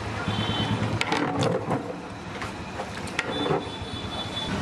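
Busy street background noise with scattered sharp clicks and clatter, and a brief high, horn-like tone near the end.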